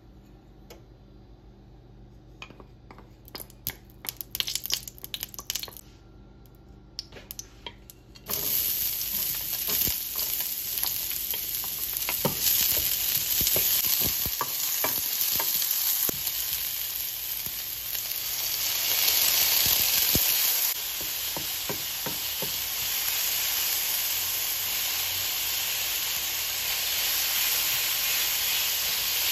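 A wooden spoon clicks and scrapes lightly in a nearly empty nonstick frying pan. About 8 seconds in, chopped onion goes into the hot oil and a loud sizzle starts abruptly, then carries on steadily as the onion fries and is stirred with the wooden spoon.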